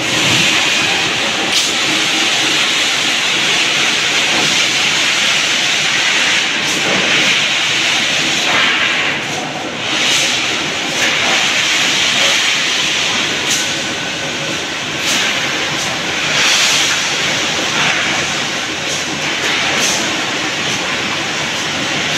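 Steel rolling mill noise: a loud, steady hiss with sharp metallic clanks every few seconds, from steel bars and the cooling-bed machinery.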